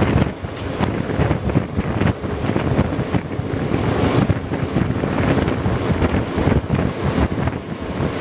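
Wind rushing and buffeting the microphone at an open window of a moving train, over the train's steady running noise.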